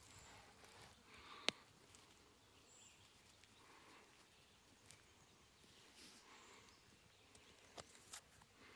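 Near silence with faint handling noise from gloved hands sorting broken rock fragments. A single sharp click of stone knocking on stone about a second and a half in, and two smaller clicks near the end.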